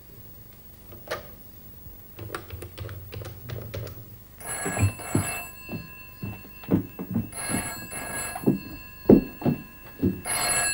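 A push-button telephone being dialled: a quick series of key clicks. Then a telephone rings in three bursts about three seconds apart, with a steady run of thuds about two a second beneath the rings.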